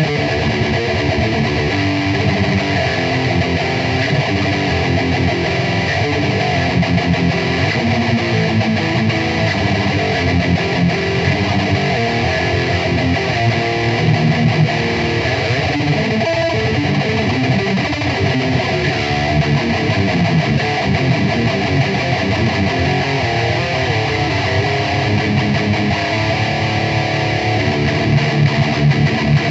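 High-gain distorted electric guitar playing heavy-metal riffs through a Peavey 5150-style 4x12 cabinet impulse response (Dr. Bonkers PVH515), with no pauses.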